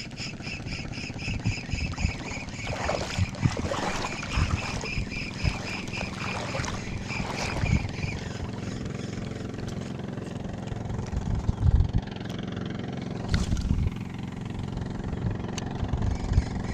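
Spinning reel being cranked on a lure retrieve, giving a rhythmic whirring tick about four times a second that stops about eight seconds in. Wind buffets the microphone throughout, as a low rumble with gusty thumps.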